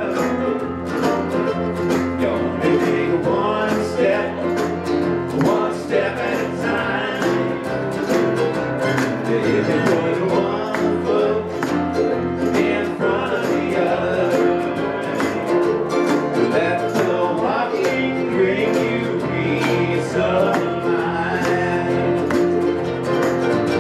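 Live band music: an acoustic guitar strummed, a Korg keyboard and a djembe hand drum keeping a steady beat, with men singing a song over them.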